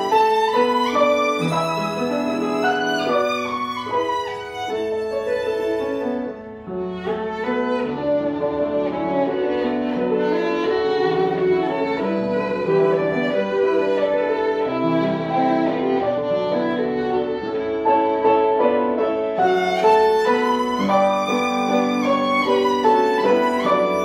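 Solo violin playing a lively melody with piano accompaniment. About six seconds in the sound turns mellower, with a brief dip in loudness, and it grows brighter again near the end.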